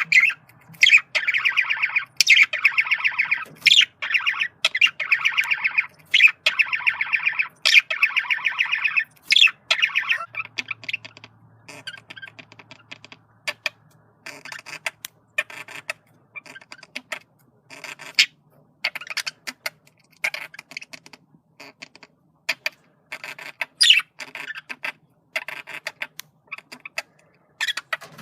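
Male budgerigar chattering: long warbling phrases broken by sharp squawks and clicks for about the first ten seconds, then shorter, separate chirps and clicks.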